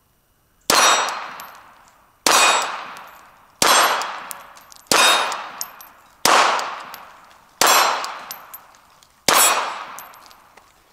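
Seven pistol shots from a Glock 42 in .380 ACP, fired about one and a half seconds apart, each followed by a long ringing decay as the steel plates are struck. The string ends with six hits and one miss, and the pistol ran without a jam.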